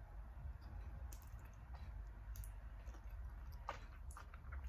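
Faint wet mouth clicks and lip smacks of a person sucking and chewing chicken feet eaten by hand, with a quick cluster of clicks near the end, over a low steady hum.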